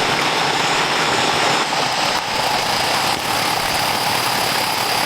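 Steady rushing hiss of heavy rain, even and unbroken.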